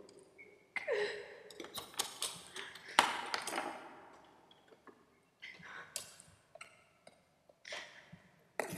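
Containers and tools being handled on a tabletop: clicks, taps and knocks in irregular clusters, with a short ringing ping about a second in and the sharpest knock about three seconds in.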